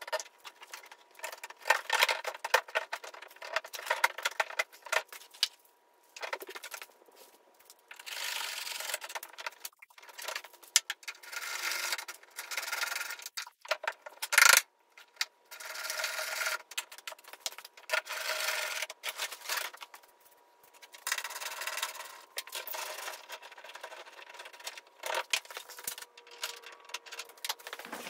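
Plastic headlight housing being worked back into a truck's front end by gloved hands: irregular rubbing and scraping of plastic parts with scattered clicks, and one sharp click about halfway through.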